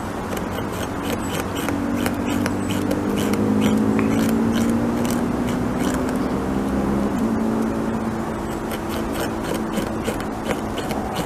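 North American beaver gnawing a tree trunk, its incisors scraping and chipping the wood in quick, irregular scrapes. A low droning hum underlies it and swells through the middle.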